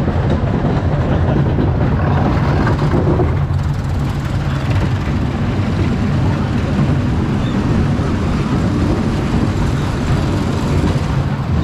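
Family roller coaster train running along its steel track: a steady, loud rumble of the cars on the rails.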